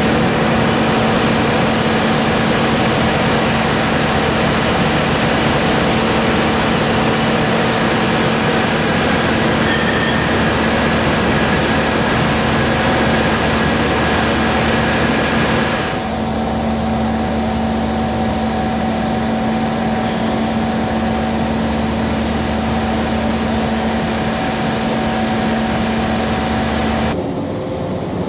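Diesel locomotive idling: a steady engine hum with a droning tone over a hiss. The hiss thins about halfway through, and the hum cuts off abruptly near the end.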